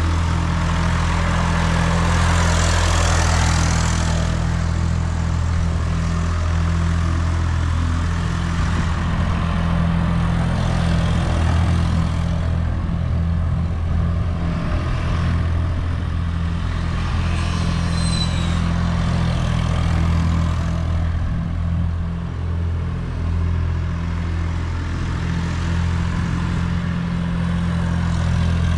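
Massey Ferguson 253 tractor engine running steadily while the tractor pulls a box blade in circles over loose soil.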